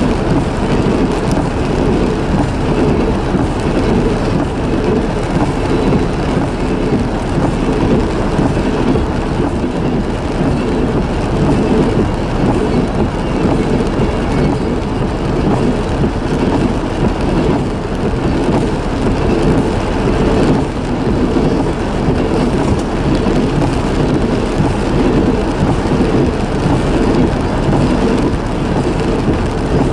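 Freight train cars rolling past close by: a loud, steady roar of steel wheels on the rails that holds unchanged throughout.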